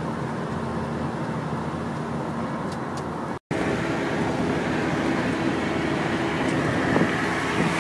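Steady engine hum and road noise heard from inside a moving car. The sound cuts out completely for a split second about three and a half seconds in, and the hum runs a little higher after the break.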